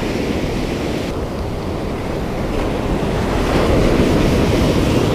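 Ocean surf breaking and washing up the shallows, with wind buffeting the microphone; the wash grows louder about three and a half seconds in.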